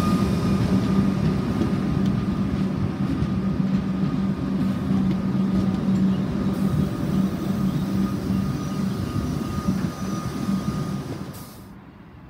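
Suburban electric multiple-unit train running past along the platform: a steady hum of motors and wheels on rail with a faint steady whine over it. It cuts off suddenly near the end, leaving quiet station background.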